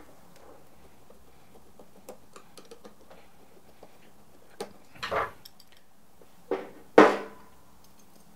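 Small metallic ticks of a screwdriver backing out the two Phillips screws that hold a burr grinder's metal motor plate to its DC motor. These are followed by several sharper metal clanks as the plate and screws come free and the screwdriver is set down. The last clank, near the end, is the loudest and rings briefly.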